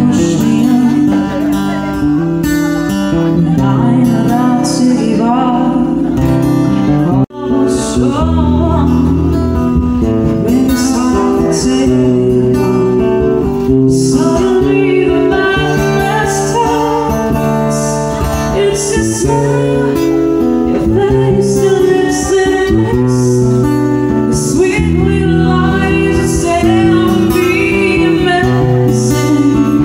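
An acoustic band playing a song: strummed acoustic guitar and singing over low bass notes. There is a brief break about seven seconds in.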